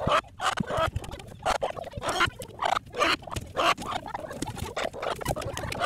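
Domestic hens clucking and grumbling close up: a quick, irregular string of short, low calls.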